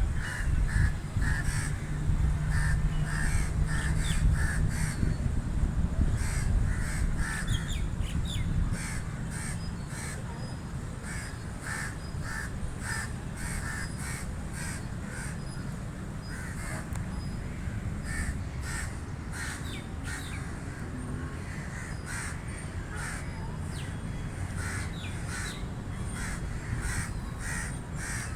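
Crows cawing, many short harsh calls repeated in quick series and overlapping, as from several birds. A low background rumble sits under the calls, louder for the first several seconds.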